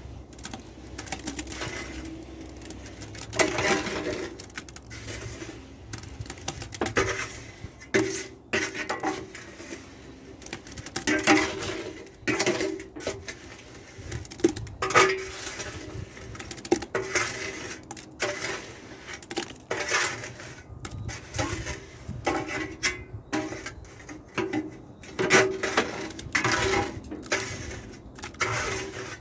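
A trowel scraping and knocking against the cement mixer's drum and a bucket while wet concrete is worked out into the bucket: irregular scrapes and clanks, some sharp, a few every couple of seconds.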